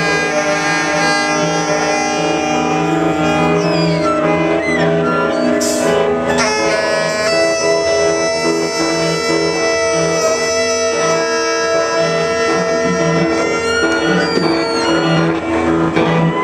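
Live experimental ensemble music: saxophones and prepared guitar build a dense drone of long, overlapping held tones. A few notes slide downward about four seconds in, and a short hissing burst comes near six seconds.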